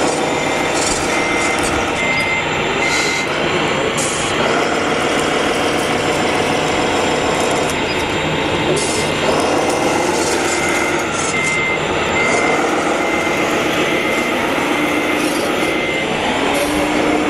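Radio-controlled truck's sound module playing a diesel engine that revs up and down, with a high reversing beeper sounding in a series of short evenly spaced beeps about a second in and again from about eleven seconds in, as the truck backs up.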